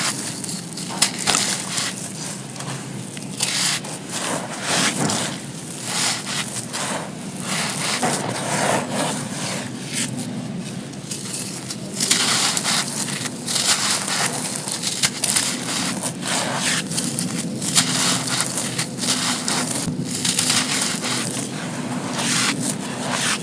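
Dry, gritty sand cones being crushed and crumbling: continuous crunching with many small sharp cracks and surges.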